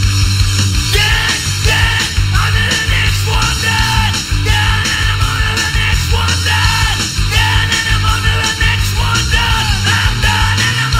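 A man's yelled, screamed rock vocals into a handheld microphone over loud rock backing music, the voice coming in about a second in and breaking off and returning in short shouted phrases.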